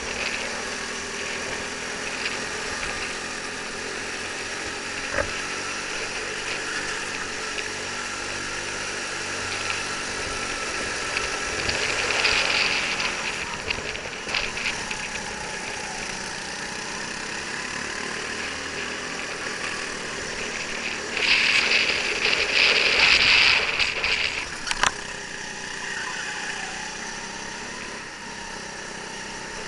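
Go-kart engine running on track, heard from onboard, its pitch rising and falling with the throttle through the corners. Louder rushing noise comes twice, around twelve seconds in and again from about 21 to 24 seconds.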